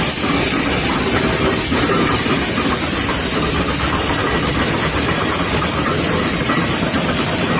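Heavy machinery running steadily at a constant level: a dense engine noise with a hiss over it, and no change through the whole stretch.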